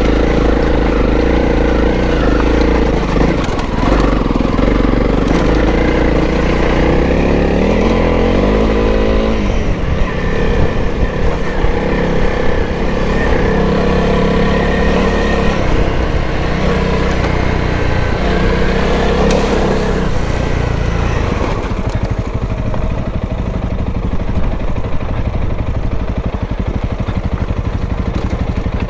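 Honda CRF300L's single-cylinder four-stroke engine running as the trail bike is ridden, its pitch rising and falling with the throttle. The revs climb briefly about eight seconds in, and over the last several seconds it drops to a lower, slower beat.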